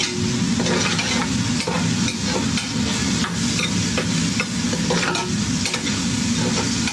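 Onions frying in a large aluminium stockpot with a steady sizzle, while a long spoon stirs them and knocks and scrapes irregularly against the pot.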